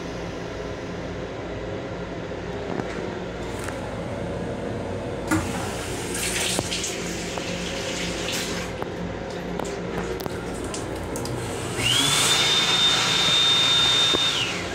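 Sink faucet in an LIRR M7 railcar restroom running water for a few seconds, over the steady rumble of the moving train. Near the end a small motor spins up to a loud, steady high whine for about three seconds, then winds down.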